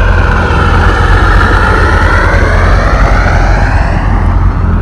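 Kawasaki Jet Ski running at speed: a steady engine and jet-pump whine whose pitch rises and falls a little, over a low rumble.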